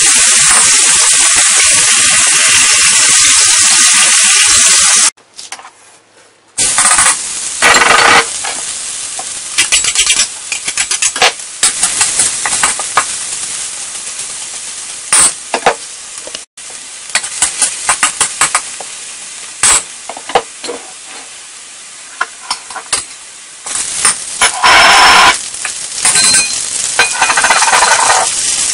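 Chicken pieces sizzling in a hot wok as they are tossed with a metal wok spatula. After a break about five seconds in, minced garlic frying in the oil, with the spatula scraping and clinking against the wok. Near the end a louder surge of sizzling comes as bell peppers and mushrooms go in.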